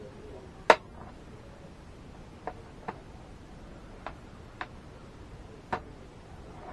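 Six irregular sharp clicks and taps of small hard parts being handled, the loudest about a second in.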